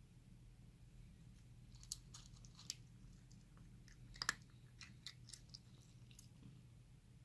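A cat chewing and crunching food, with a few irregular crisp crunches, the loudest a little past four seconds in.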